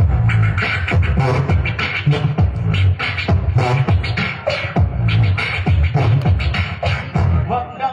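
Beatboxing into a handheld microphone, amplified: a steady beat of deep bass kicks and sharp snare-like clicks made with the mouth.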